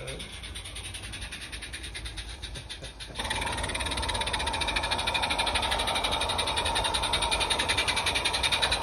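Garden-scale live-steam locomotive 'Owain Glyndwr' running with a fast, even beat, fainter for the first three seconds and then louder close by.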